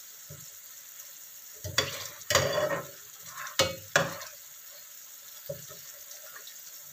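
Slotted metal spatula stirring chicken feet and eggs in a nonstick frying pan, scraping and knocking against the pan several times, loudest between about two and four seconds in. Under it the sauce sizzles steadily over the gas flame.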